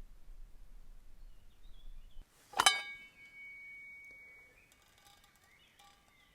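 A single sharp metallic clink of camp cookware, ringing with a clear tone that fades over about two seconds, followed by a few lighter metal clinks near the end.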